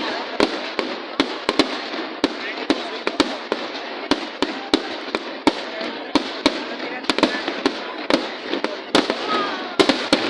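Fireworks display: a rapid, irregular stream of bangs and crackles, several a second, over a continuous haze of sound, with voices from the watching crowd underneath.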